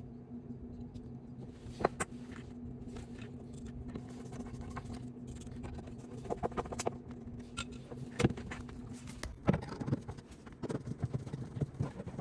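Scattered clicks and light metallic taps of a concealed cabinet hinge and its screws being handled, taken off and fitted to the door, with a sharper click about 2 s in and another about 8 s in. A steady low hum runs underneath and stops about 9 s in.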